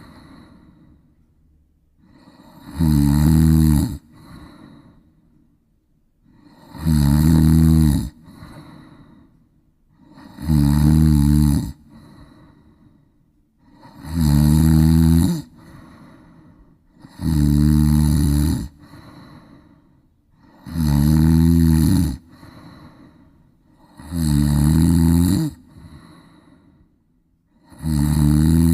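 Loud, regular snoring: eight rattling snores, one about every three and a half seconds, each lasting over a second and followed by a softer breath.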